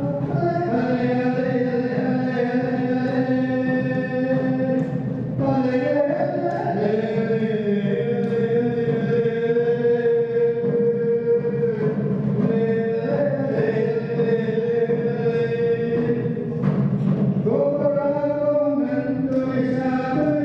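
Khasi traditional dance music: a wind instrument plays long held notes that change pitch every few seconds, over a small hand drum.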